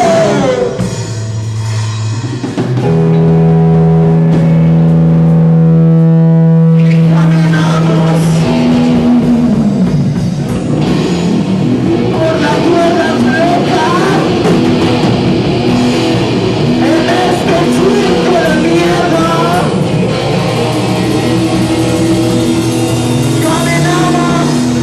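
Live band playing loud rock-leaning music with guitar. A long low note is held from about three seconds in to about eight, and dense playing with wavering pitched lines follows.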